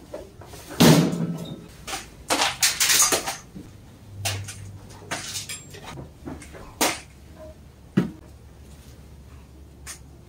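Dry dog kibble scooped with a plastic cup and poured into stainless steel bowls, rattling and clattering on the metal in several short bursts, loudest about a second in. Later comes a single sharp knock, a bowl or cup set down on the wire-mesh cart.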